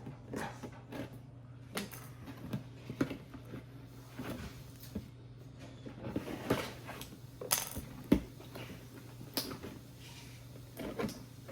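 Knife cutting and scraping through packing tape and a cardboard box, with irregular rustles, scrapes and small knocks as the packaging is handled, over a steady low hum.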